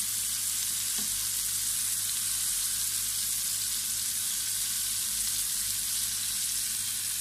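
Floured, egg-dipped fish fillets sizzling steadily in hot oil in a frying pan, an even crackling hiss.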